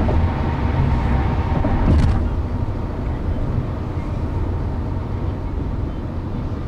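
Steady low rumble of a car driving on the highway, with brief louder surges near the start and about two seconds in.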